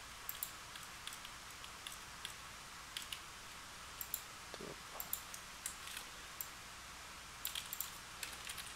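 Computer keyboard typing: irregular sharp key clicks, some single and some in quick clusters, with a busier run near the end.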